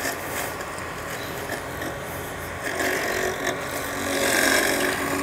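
EcoFlow Blade robotic lawn mower driving across the lawn with its cutting blade spinning, its electric motors running in a steady mechanical whir.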